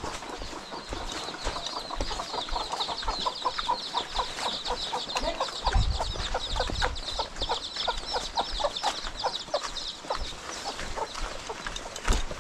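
Chickens clucking in a rapid run of short repeated notes, about four a second, easing off near the end. A low thump about six seconds in.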